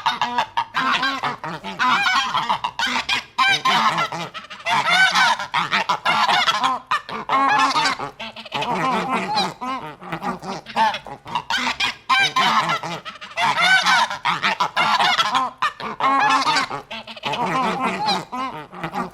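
A flock of domestic geese honking, many overlapping calls in quick runs with brief pauses between.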